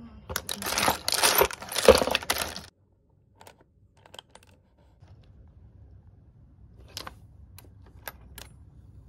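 Loose rifle cartridges and shotgun shells clattering and jingling against each other as a hand stirs through a boxful of them; the rattle stops abruptly under three seconds in, followed by a few faint single clinks.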